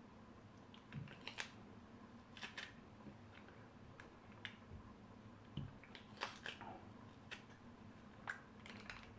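Faint, scattered clicks and taps of a metal garlic press worked over a plate as garlic cloves are squeezed through it.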